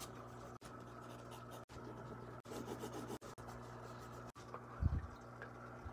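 Faint rubbing and brushing of a fingertip on sketchbook paper, over a low steady hum, with one dull low bump about five seconds in.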